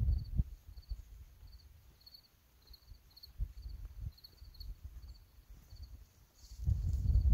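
A cricket chirping steadily, short high trills two or three times a second. Near the end, footsteps swishing through dry grass grow loud as hikers walk up close.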